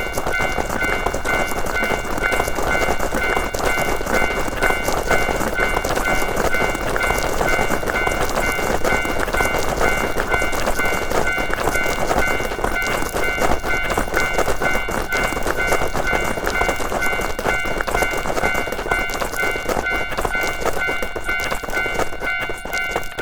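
Japanese railroad crossing bell ringing in an even repeating rhythm while a train passes with a steady rumble and wheel clatter.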